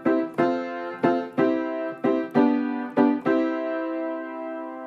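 Closing music on piano: chords struck in pairs, about two a second, then a last chord held and slowly fading.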